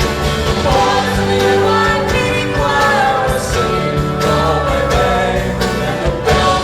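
Live band playing, with singing over guitars and a steady drum beat.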